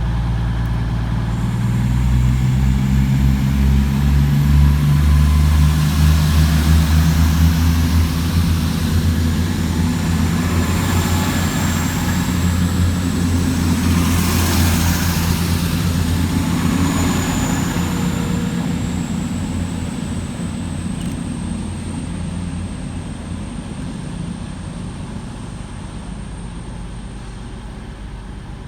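Class 221 Super Voyager diesel-electric multiple unit departing. Its underfloor Cummins diesel engines rise in power about two seconds in, then the engine noise slowly fades as the train pulls away.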